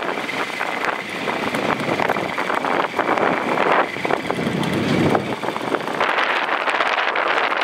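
Strong wind buffeting the microphone, a gusty rushing with crackles, and a faint steady whine that cuts off about six seconds in.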